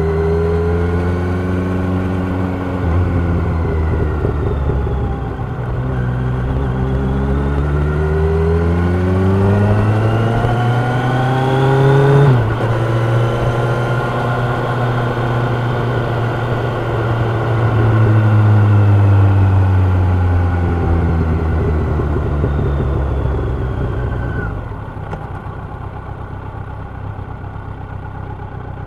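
Kawasaki Ninja 1000's inline-four engine and exhaust under way: revs fall, then climb steadily under acceleration, drop sharply on an upshift about halfway through, hold and climb again, then fall away as the throttle closes, settling to a quieter low note near the end.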